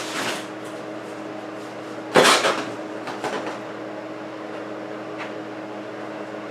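An umbrella being handled and opened: a sudden loud rustling snap about two seconds in, then a few lighter clicks and rustles.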